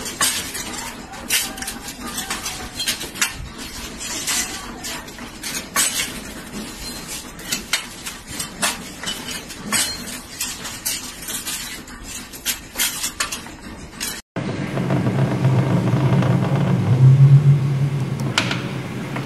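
Steel rods clanking and clinking irregularly against a hand-lever bending jig and against each other as they are bent. About 14 seconds in, this cuts to a steady low hum.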